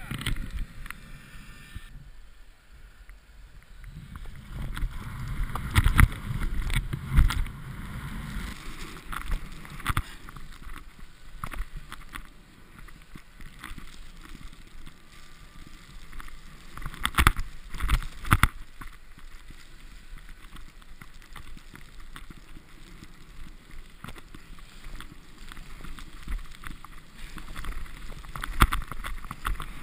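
Deep powder snow rustling, crunching and scraping against a body-mounted GoPro as a snowboarder flounders in it, with a few louder knocks and scrapes scattered through.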